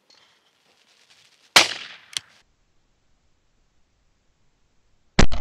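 Two shotgun shots, one about a second and a half in and one near the end, each a sudden loud crack that dies away quickly, with a shorter sharp crack just after each.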